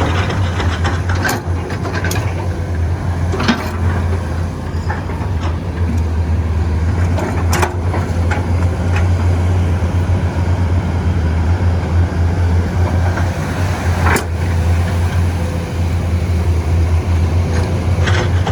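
Excavator's diesel engine running steadily, with several sharp knocks at irregular intervals.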